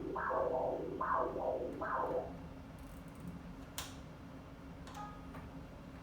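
Echocardiogram machine's Doppler audio: pulsing whooshes of blood flow through the heart, three beats a little under a second apart, which stop about two seconds in. Over a steady machine hum, a sharp click follows, then a brief high tone.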